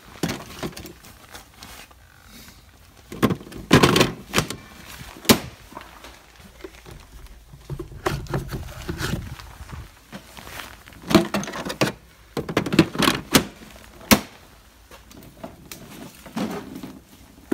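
Irregular plastic knocks, clicks and thunks from handling an EGO cordless snowblower around its battery bay, with rustling in between; the sharpest knocks come about four, five and fourteen seconds in.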